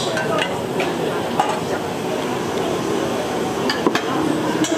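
Restaurant noise: a few sharp clinks of utensils against dishes over a steady background hum of kitchen and room noise.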